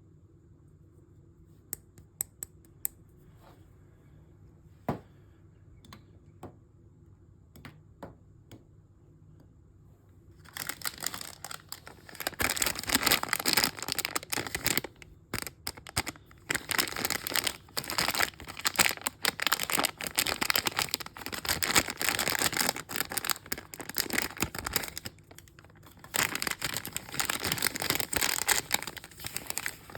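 A few scattered light clicks, then from about ten seconds in a mystery bag's wrapper crinkling and tearing almost without a break, pausing briefly twice.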